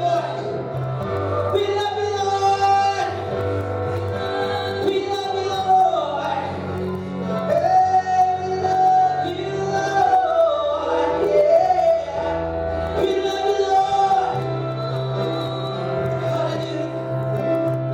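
Worship singing in a church: voices singing a song over instrumental accompaniment, with held bass notes underneath that change a few times.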